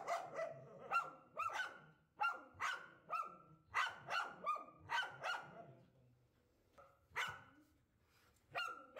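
Two dogs barking sharply and repeatedly in alarm at a hooded cobra. The barks come in a quick run, break off about five and a half seconds in, then resume with a couple of single barks near the end.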